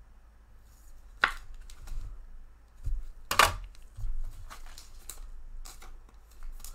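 Trading cards being handled: a handful of short, sharp taps and rustles as cards and packs are moved and set down, the loudest about three and a half seconds in, over a faint low hum.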